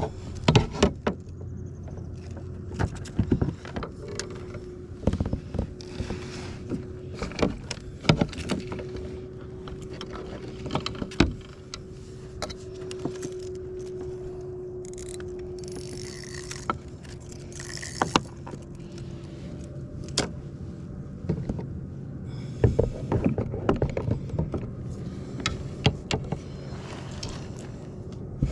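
Irregular knocks, clicks and light rattles of fishing gear being handled aboard a kayak, over a steady low hum.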